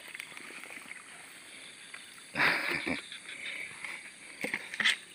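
A PVC-pipe eel trap being pulled out of a shallow ditch: a short splash and pour of water about two and a half seconds in, then a few smaller splashes or knocks near the end.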